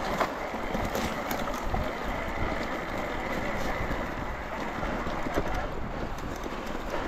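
Electric mountain bike being ridden: steady tyre and rolling noise with many small clicks and rattles from the bike, and wind on the microphone.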